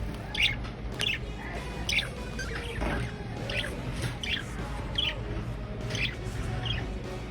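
Cockatiels calling: short, falling chirps repeated about once a second.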